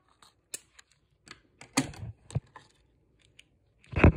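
Hands handling a plastic toy dinosaur and its plastic packaging: a run of irregular clicks, taps and light crinkles, with a louder knock about four seconds in.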